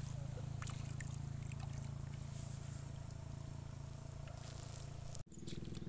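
A steady low hum like a small motor running at a distance, with a brief dropout near the end.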